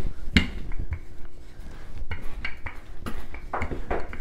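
Wooden rolling pin rolling out soft dough on a countertop, giving a string of light knocks and clatters, the sharpest about half a second in and several more in the second half.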